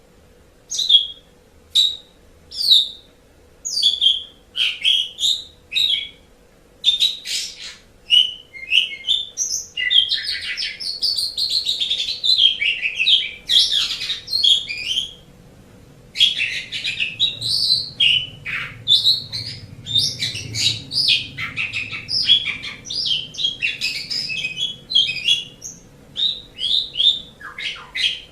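Asian pied starling (jalak suren) singing: short separate calls about once a second at first, then a long run of varied, quickly changing song notes with a brief pause about halfway.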